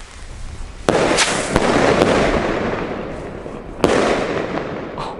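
ABA Blitz & Donner mini salute rockets with the silver feather effect bursting overhead. A sharp bang about a second in is followed by a few lighter cracks, and a second bang comes near four seconds in; each bang trails off in a rumbling echo.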